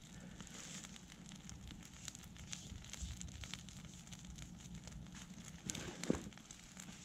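Small wood fire crackling with scattered little pops, and one sharper snap about six seconds in.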